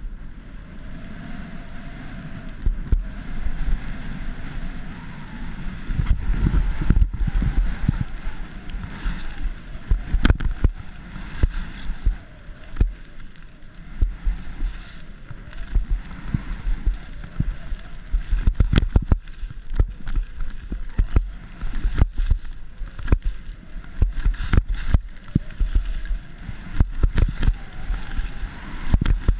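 Skis sliding and scraping over the piste snow during a downhill run, with wind rumbling on the mounted camera's microphone and frequent sharp knocks as the camera is jolted over bumps.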